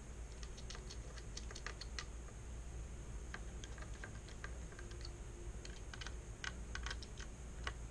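Small screwdriver working the screws around the GPU core on the back of a graphics card's circuit board: faint, irregular light clicks and ticks, several a second, coming in small clusters.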